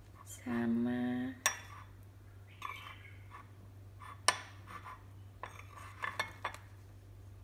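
A metal spoon clinking and scraping against a small ceramic dish while scooping out sambal: a couple of sharp clinks, then a cluster of lighter taps near the end.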